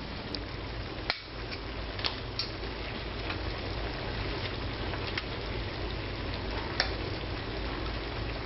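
Thin steak and mushrooms sizzling in Marsala wine in a skillet, a steady frying hiss with a few sharp clicks of a utensil against the pan as they are stirred.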